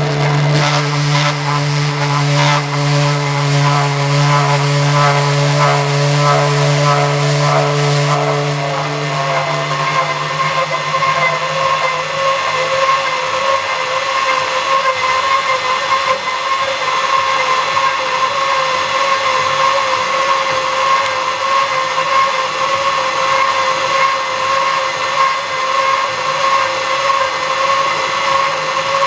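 Magnetic drill press motor running as a hollow annular cutter bores into steel, a loud steady whine. About nine seconds in a low hum drops away and a higher steady whine carries on.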